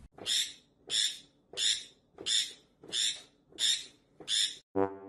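A conure screeching seven times in a steady rhythm, about one and a half harsh squawks a second. A brass music fanfare starts just before the end.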